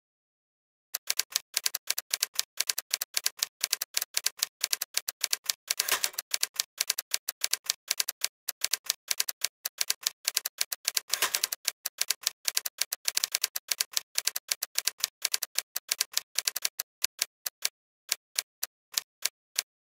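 Typewriter keystrokes, a rapid, uneven run of sharp clicks several a second, used as the sound effect for on-screen text being typed out letter by letter. They start about a second in and thin out to spaced single clicks near the end.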